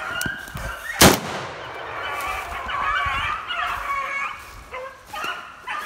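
A pack of beagles baying as they run a rabbit. About a second in comes one sharp, very loud bang.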